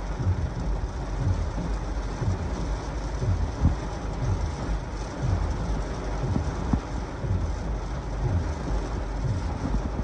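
Heavy thunderstorm rain beating on a car's windshield and roof, with gusty wind, heard from inside the car. A low rhythmic swoosh repeats roughly once a second: the windshield wipers sweeping.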